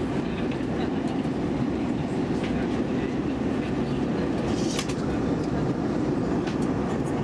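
Steady low rumble of cabin noise inside an Airbus A320 airliner in flight: engine and airflow noise heard through the fuselage, with a few faint clicks.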